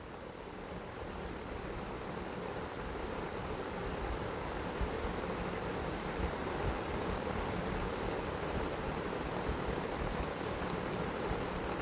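Steady rushing noise, like moving air, that swells over the first few seconds and then holds.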